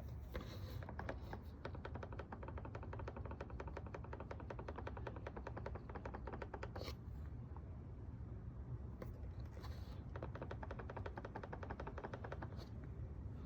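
Rattle from the B-pillar trim of a 2023 Honda Odyssey Elite: rapid clicking, roughly ten a second, in two long runs with a short break between them, over a steady low rumble.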